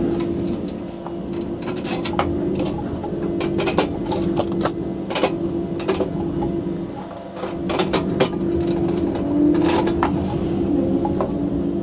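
Scattered light metal clicks and taps as steel bottom-shelf slats are set into a gas grill's cart frame and bolts are screwed in through the panel, over a steady low hum.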